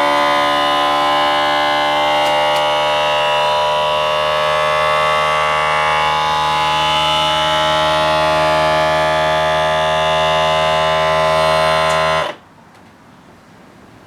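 Small electric pump motor of a bag sealer running with a steady buzzing hum, then cutting off abruptly about twelve seconds in.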